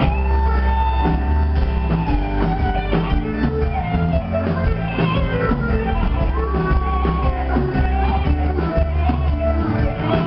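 Live rock band playing a slow rock number: electric guitar lead with sliding, bent notes over bass guitar and drums.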